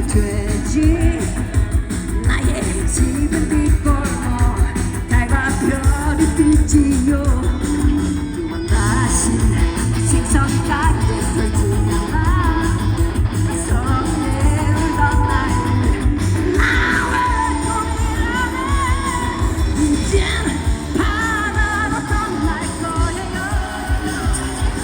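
Rock band playing live, a woman singing the lead over a steady, loud band of drums, bass and electric guitars.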